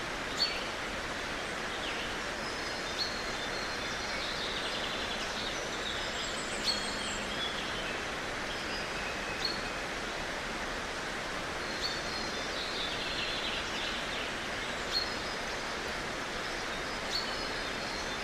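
Small birds calling over a steady outdoor hiss: a short sharp chirp every two to three seconds, with patches of twittering trills.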